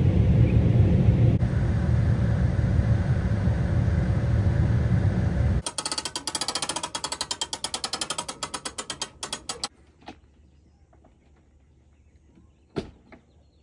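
Low, steady rumble of a vehicle in motion that cuts off abruptly about five seconds in. A fast run of ratchet-like clicks follows for about four seconds, then one sharp click near the end.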